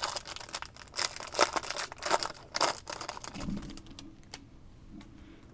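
Trading card pack wrapper being torn open and crinkled by hand: crackly rustling and clicks for the first three seconds or so, thinning out toward the end.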